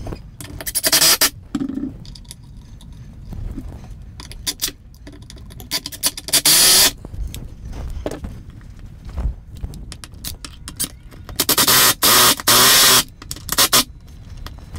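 Cordless drill driving screws through wooden French-cleat strips into the wall studs, in several short bursts with clatter between them; the longest burst comes near the end.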